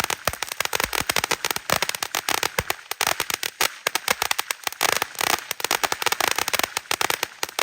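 Small consumer fireworks crackling and popping in a rapid, irregular string of sharp cracks, many a second.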